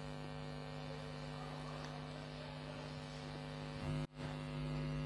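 Steady electrical mains hum and buzz, cut off briefly about four seconds in and then resuming slightly louder.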